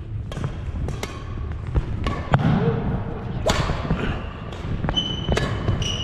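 Badminton rally: sharp cracks of rackets striking the shuttlecock and quick footfalls on a gym floor, with a short sneaker squeak near the end, in a large echoing hall.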